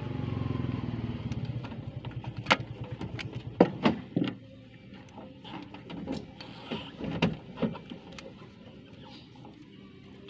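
A motor vehicle's engine running with a rapid low pulse that fades over the first few seconds. Sharp clicks and knocks are scattered throughout.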